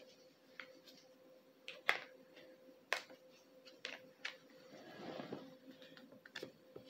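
Faint scattered clicks and taps of small Happy Meal toy pieces being handled, with a brief soft rustle a little after the middle, over a faint steady hum.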